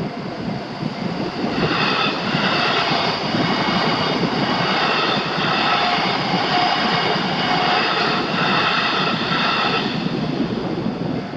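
Train passing through a level crossing: a loud, steady rumble, with high-pitched tones from the passing train on top of it from about two seconds in until about ten seconds in.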